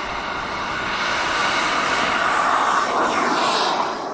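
Radio-controlled model jet's engine at full power on its takeoff roll: a rushing whine that grows louder, then drops in pitch and fades as the jet passes by near the end.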